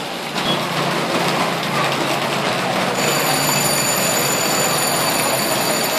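Steady rushing noise of heavy rain and floodwater. About halfway through, a high, steady electronic ringing tone sets in and holds.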